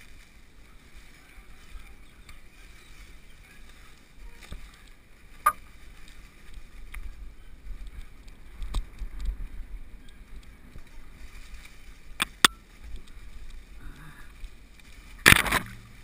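Mountain bike riding down a dry dirt singletrack: a steady rumble of tyres and frame vibration, broken by sharp knocks and rattles over bumps, a few in the middle and a loud clatter about a second before the end.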